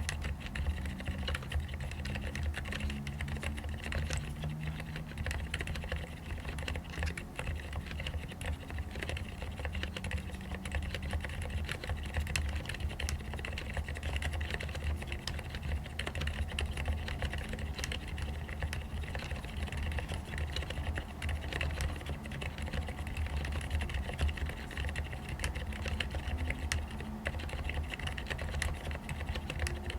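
Continuous fast typing on a mechanical keyboard with fully lubricated Cherry MX Silent Red switches: soft, muted keystrokes in which mostly the fingers striking the keycaps are heard, with a steady low hum underneath.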